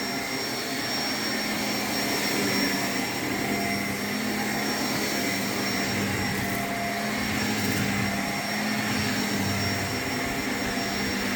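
Shark vacuum cleaner running steadily, its motor hum holding an even pitch.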